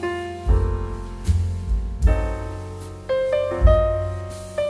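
Background piano music, with chords struck and left to fade and a deep bass note about once a second.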